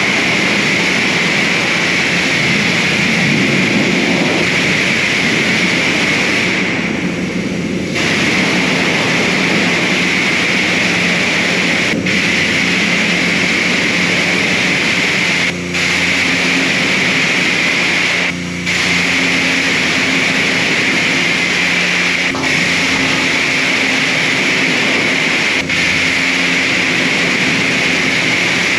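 High-pressure car wash wand spraying water onto a car's body: a loud, steady hiss with a low pump hum underneath. The hiss dips briefly a few times.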